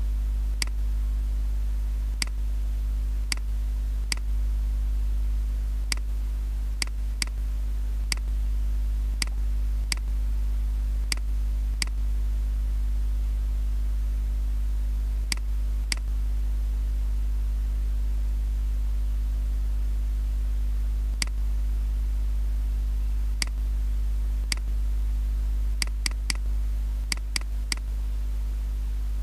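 Computer mouse buttons clicking, single and double clicks at irregular intervals with a pause of several seconds midway and a quick run of clicks near the end, over a steady low electrical hum.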